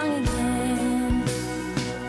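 Background music: a song, with one melody note held for about a second.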